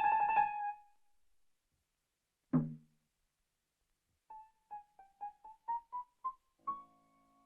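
Cartoon score music on piano. A phrase dies away, then after a pause comes a single short low thud. Then single piano notes are picked out one at a time, climbing slowly and coming faster, and settle on a held note near the end.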